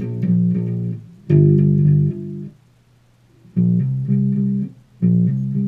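Electric bass guitar played solo, plucked with the fingers: short phrases of repeated notes in quick groups, with one longer held note about a second and a half in and a short pause just before the midpoint.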